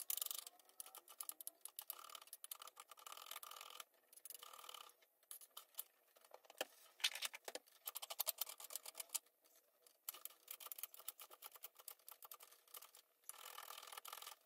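Knife dicing onion and garlic into small pieces: faint, quick taps in runs, with short pauses between.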